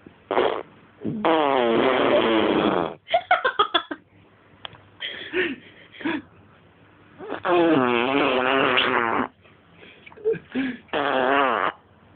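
A baby blowing voiced raspberries, a lip trill with the voice buzzing through vibrating lips. There are two long trills of about two seconds each and a shorter one near the end, with brief sputters between them.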